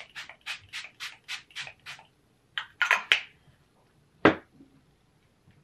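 e.l.f. Dewy Setting Mist pump spray bottle spritzed rapidly, about four short hissing sprays a second for around two seconds, then three more sprays after a brief pause. A single sharp knock follows near the end and is the loudest sound.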